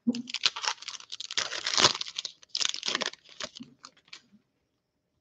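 Foil wrapper of a Panini Optic football card pack crinkling and tearing as it is opened by hand. A rapid, irregular crackle stops about four seconds in.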